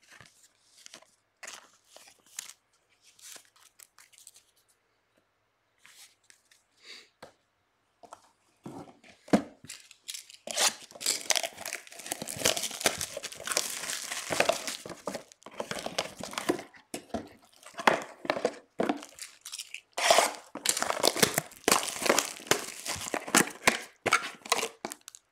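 Plastic wrapping being torn and crinkled off sealed trading-card hobby boxes. There are soft handling clicks at first, then from about eight seconds in a continuous run of tearing and crinkling, with a short pause near the end.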